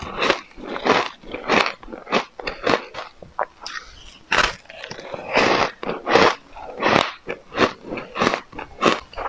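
Close-miked crunching and chewing of frosty, powdery purple ice: a steady run of crisp crunches, about one to two a second, as the ice is bitten and chewed.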